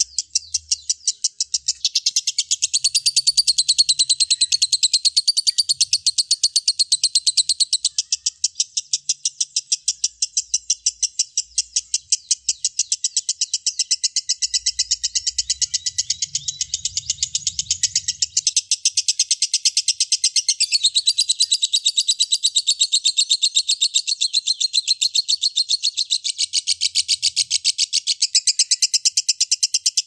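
Fischer's lovebird singing a long, unbroken chatter of rapid, high-pitched chirps, several a second.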